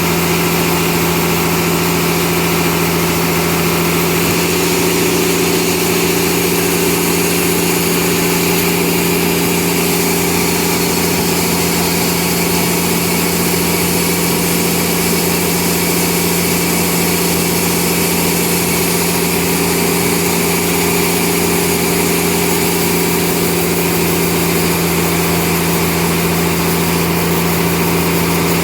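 Sawmill machinery running steadily: a constant engine-like hum with a dense high hiss and no change in pitch or level.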